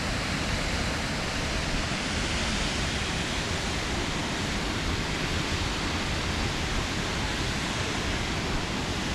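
Rushing water, a steady even hiss with no change in level.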